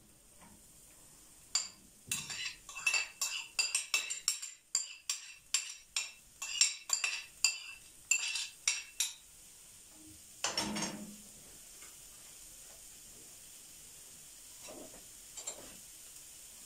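A spoon knocking and scraping chopped onion out of a bowl into a frying pan, sharp ringing knocks about twice a second for several seconds, then one louder clatter about ten seconds in. After that, the onion sizzles faintly and steadily in hot oil and ghee.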